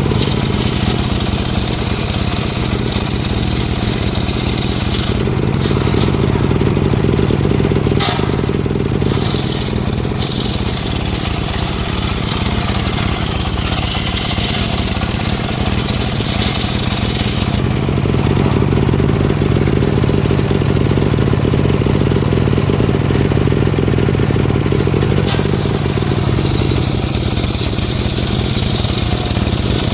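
Engine-driven wood saw running continuously while sawing logs, its engine note growing heavier and then easing off twice as the load changes.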